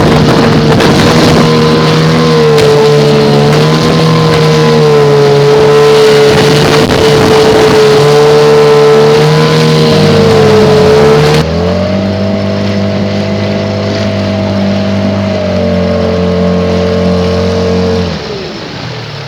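A motorboat engine running close by at a steady speed, its pitch wavering slightly. About 11 seconds in the engine note steps up, and near the end it winds down with a falling pitch.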